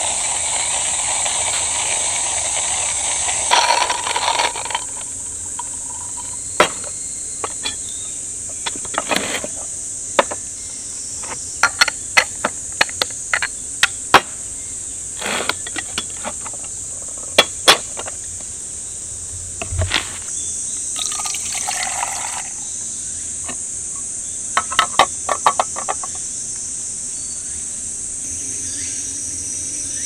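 Insects chirring steadily and high-pitched in the background, with water being poured at the start and again about twenty seconds in. Many short clicks, taps and knocks from equipment being handled run in between.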